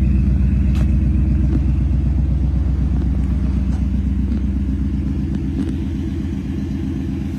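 1955 Ford Customline's engine running steadily, a loud low rumble with an even pulsing beat that eases slightly toward the end.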